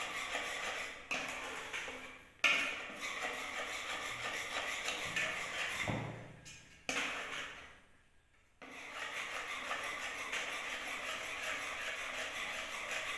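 Wire whisk beating pancake batter in a rice-cooker pot: a fast, steady run of scraping and light clicking of the whisk against the pot. It drops out briefly about two seconds in and again for about a second past the middle.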